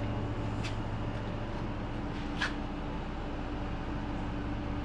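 Steady low machine hum, like a shop fan or air conditioner running, with two light clicks, the second a little louder, about two and a half seconds in.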